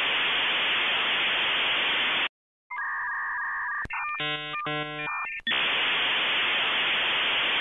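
Static-like hiss of white noise that cuts off suddenly. After a short gap comes a steady two-note electronic tone, then a short electronic jingle of stepped notes, and then the static hiss returns.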